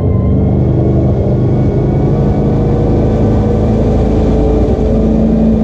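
Chris-Craft cuddy boat's MerCruiser sterndrive engine running steadily at high revs under load, towing a wakeboarder, with water rushing from the wake; its pitch creeps slightly higher near the end.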